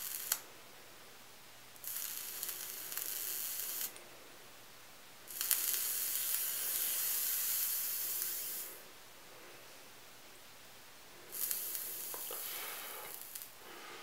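Kanger ProTank coil sizzling and crackling as it is dry-burned without its wick, fired from the battery in three pulses of a few seconds each to burn the residue off the coil.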